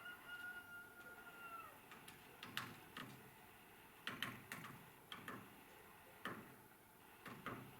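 Woodpecker tapping on a tree trunk: single and paired sharp knocks on wood at an irregular pace, not a fast drum roll. A steady whistled note sounds for about the first second and a half, then falls away.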